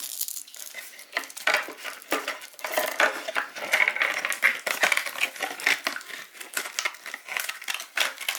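Hands handling small hard plastic parts and packaging: a dense run of light clicks, taps and rustles, busiest in the middle.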